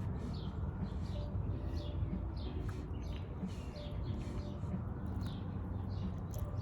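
A small bird chirping over and over, about two short falling chirps a second, over a steady low hum.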